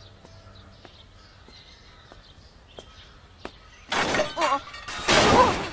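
A sudden loud crash of something breaking about four seconds in, in two bursts, with a voice crying out, after a few seconds of near-quiet.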